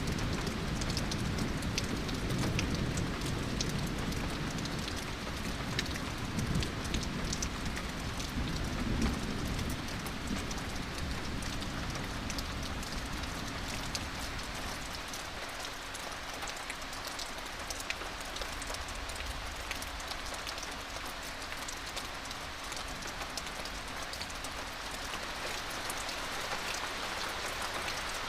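Steady heavy rain falling, with many individual drops ticking. A low, rolling thunder rumble dies away over the first ten seconds or so.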